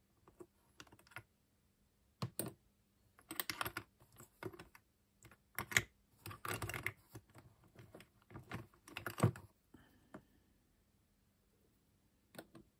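Small metal Humbrol enamel paint tins clinking and clattering against each other as a hand rummages through a tub of them, in irregular bursts of clicks with a brief faint metallic ring about ten seconds in.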